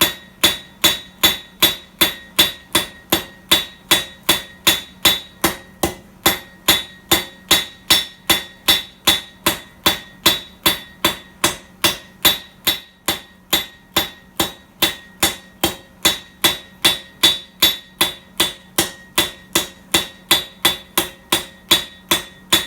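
Hand hammer striking hot steel on an anvil, forging out a decorative leaf: a steady run of blows, about two to three a second, each with a bright metallic ring that carries between strikes.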